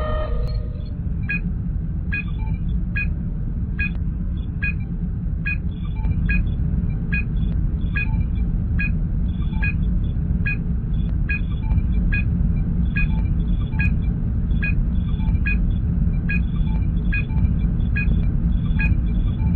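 Sci-fi starship sound effect: a steady deep engine rumble, with a short electronic scanner blip repeating about every 0.8 seconds.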